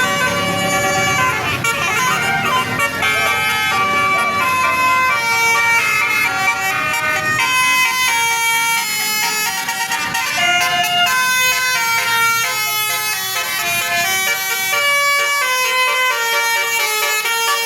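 Indonesian bus 'telolet' horn playing a long melody of quickly changing notes, several sounding at once.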